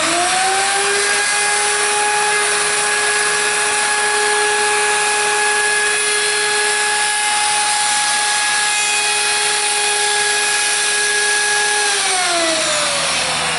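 Handheld D-handle router switched on, spinning up fast to a steady high whine as it cuts a profile along a board's edge, then switched off about twelve seconds in, its pitch falling as the motor winds down. It is a single-speed router, either off or on.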